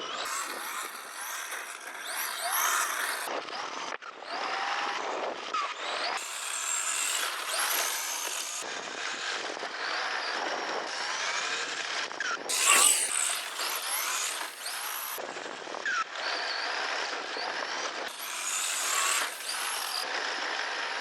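Electric motor and gear transmission of a 1:10-scale Team Associated Apex2 Sport RC car whining, rising and falling in pitch as the car speeds up and slows. It plays as several short clips that cut off abruptly. The whine sounds like a turbine and comes from a vibration in the transmission that the owner traced to slight backlash on a gear shaft.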